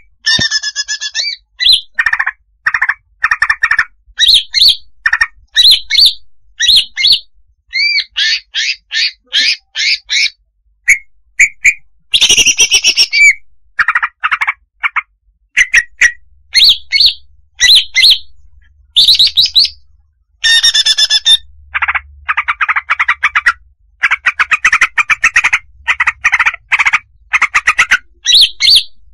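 Female greater green leafbird (cucak hijau) calling, a lure call for trapping. It is a loud, busy run of varied chirps and squeaky notes with a series of quick rising notes and stretches of fast chattering trills, broken only by short gaps.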